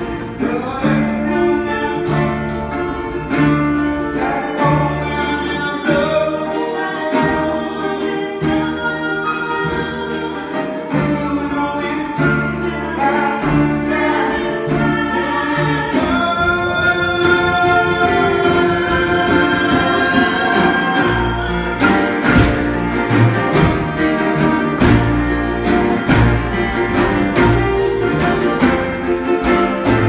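A small acoustic band playing live: double bass laying down a steady bass line under an acoustic guitar and a keyboard, with long held melody notes above.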